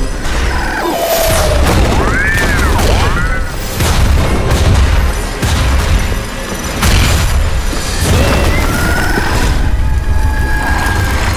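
Film sound design: a string of heavy explosion booms with a deep rumble, laid over dramatic music. A few short rising-and-falling whistling tones come through about two seconds in and again near the end.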